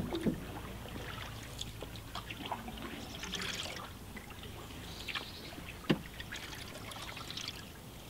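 Canoe paddling: water trickling and dripping from a paddle with small splashes of the strokes. A sharp knock comes at the start and again about six seconds in.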